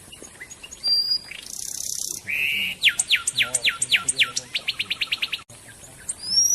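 A songbird singing. A short high whistle and a hissing note come first, then a run of quick downward-sweeping notes, about four a second, that speeds into a faster trill before a brief pause and a rising note near the end.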